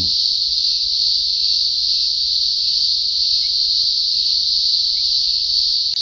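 A chorus of many male cicadas calling together: a loud, high-pitched constant drone with no break or pulsing.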